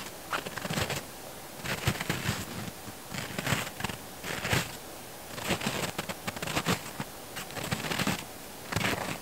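Footsteps crunching through thin snow at a steady walking pace, about two steps a second, with a short pause about five seconds in.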